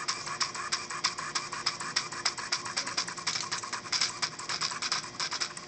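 3D-printed mechatronic pen plotter drawing on an index card: a rapid, steady train of light clicks and ticks from its motors, plastic gears and pen, about eight to ten a second.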